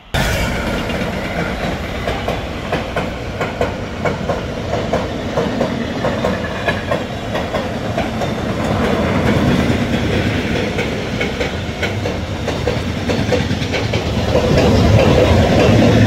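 Train passing close by on the railway line, its wheels clattering rapidly over the rails. The sound starts abruptly and grows louder near the end.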